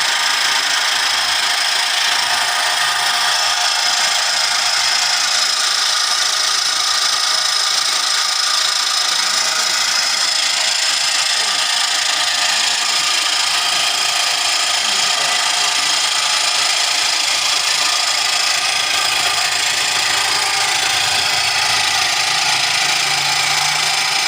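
Motor of a second-hand water pump, rigged as a bread-dough mixer, running steadily and loud.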